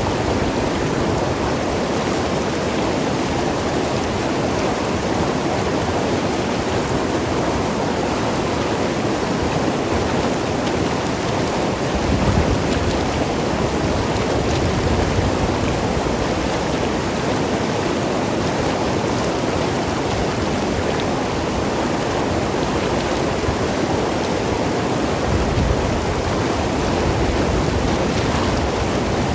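Mountain river rushing and gurgling over rocks, a steady flow of water with brief deeper surges about twelve seconds in and again near the end.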